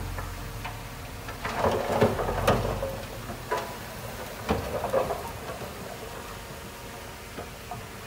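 Dump truck tipping out a load of soil and rocks: the material slides off the raised bed and tumbles onto the pile in uneven rushes and clattering knocks, busiest in the first half and thinning out toward the end, with a low steady engine hum underneath.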